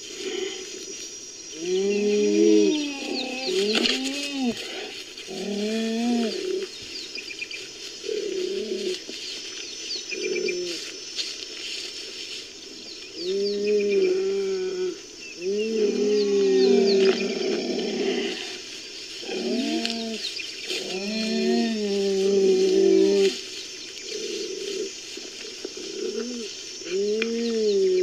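Sound effect of cheetah calls: repeated short, pitched calls that rise and fall, each under a second, coming in bouts with short pauses and a last single call near the end. Small birds chirp faintly in the background.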